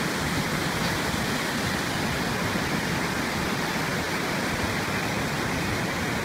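Swollen, muddy floodwater stream rushing over rocks, a steady, even rush of water.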